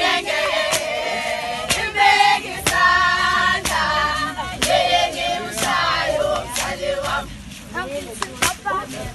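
A group of women singing and chanting a traditional Zulu dance song together, with high, held calls. A sharp percussive beat keeps time about once a second.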